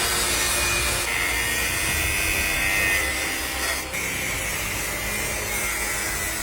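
Power tool cutting steadily, with a high whine that dips briefly about a second in and again near four seconds, then cuts off suddenly near the end.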